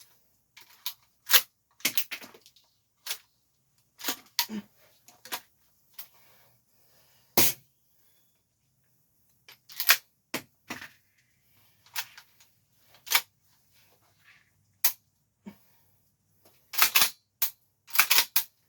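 APS CAM870 MK3 airsoft pump-action shotgun being reloaded and worked: a string of sharp, irregular clacks and clicks as shells go in and the pump is racked, with two louder clusters near the end.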